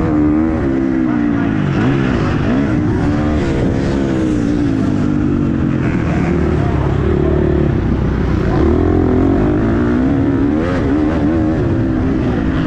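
Motocross bike engine racing under hard throttle, heard from the rider's helmet, its pitch rising and falling with the throttle and gear changes. It drops as the bike slows for a turn about six seconds in, then climbs again as it accelerates.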